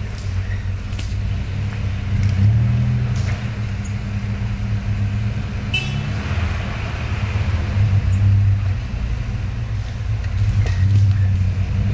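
Off-road 4x4 truck engine running at low revs, swelling and easing as it crawls, with a few sharp clicks.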